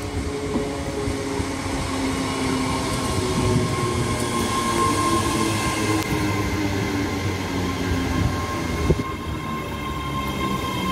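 ScotRail Class 385 electric multiple unit moving past at the platform, its traction equipment giving a steady electric whine of several held tones over the running noise. A single sharp knock about nine seconds in.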